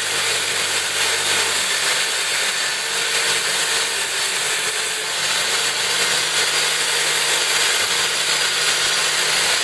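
Motor-driven brush wheel spinning with a steel crampon held against it to brush off rust: a steady scrubbing noise over a low motor hum.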